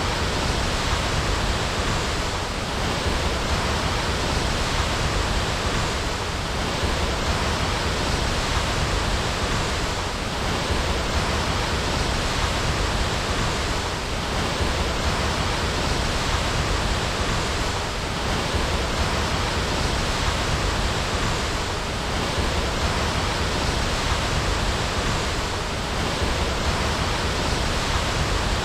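Waterfall rushing: a steady, dense roar of falling water that swells and eases slightly about every four seconds.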